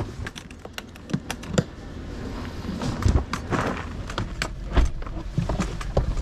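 Handling noise from a white plastic cooler box being picked up and carried: its handles and lid clack, with a string of small clicks and several dull thumps over a low rumbling background.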